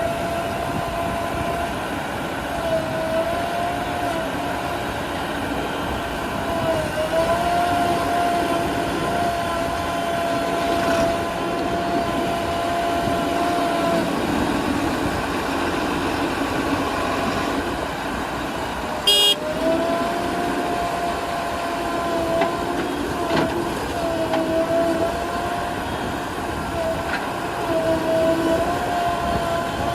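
JCB 3DX backhoe loader's diesel engine and hydraulics working steadily with a high whine whose pitch dips briefly several times as the machine takes load. A single sharp metallic clank comes a little past the middle.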